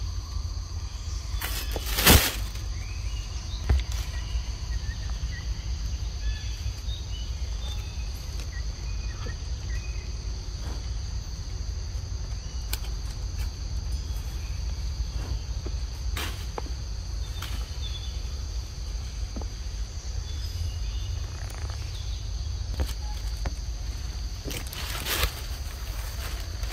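Forest ambience: a steady, high-pitched insect drone over a constant low rumble, broken by a few sharp rustles or knocks, the loudest about two seconds in.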